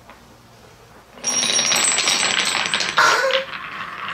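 A handful of painted wooden balls tumbling into a carved wooden bowl about a second in: a quick, dense clatter of wood knocking on wood, with one louder knock near the end, then settling into a quieter rattle as they roll around the bowl.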